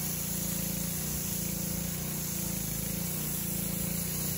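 Steady engine drone under a constant hiss, holding an even level throughout.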